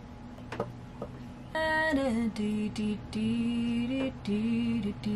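A woman singing a slow melody of long held notes that step up and down in pitch, starting about a second and a half in; before that, only a couple of faint clicks.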